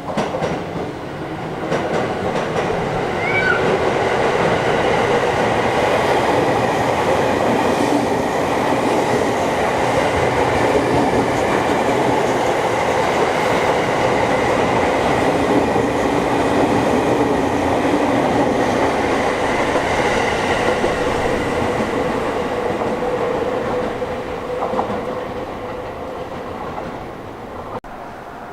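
Sotetsu Line electric train passing close by: a steady rumble and clatter of wheels on rails that comes up suddenly, holds for about 24 seconds and then dies away near the end.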